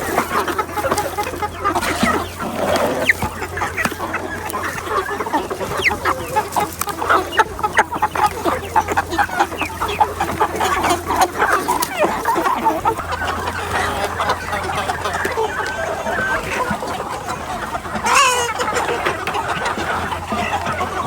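A flock of chickens clucking continuously, with one louder, drawn-out call about eighteen seconds in, over a steady low hum.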